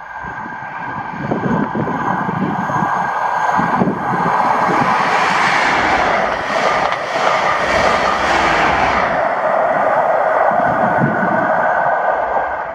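ScotRail Inter7City High Speed Train (diesel power cars with Mark 3 coaches) passing at speed. The sound rises as it approaches over the first few seconds, then comes a loud rushing pass with rhythmic wheel clatter in the middle, and it falls away near the end.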